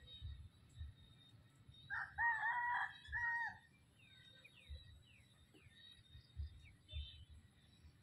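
A rooster crows once, about two seconds in, a pitched call lasting nearly two seconds. A few short, high, falling chirps follow, with soft low thumps in the background.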